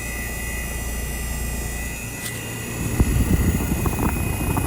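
Outdoor unit of a Trane heat pump running, its condenser fan and compressor giving a steady hum that sounds bad and turns louder and rougher about three seconds in. The owner takes it for a unit that is dying, since its line is barely cold in cool mode.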